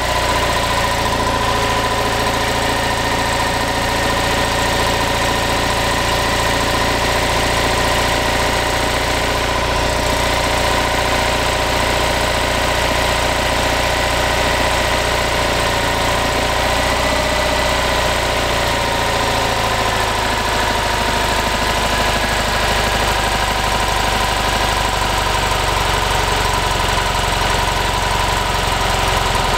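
Freshly rebuilt Fiat 500 F 499cc air-cooled two-cylinder engine idling steadily. Its speed eases down a little about two-thirds of the way through.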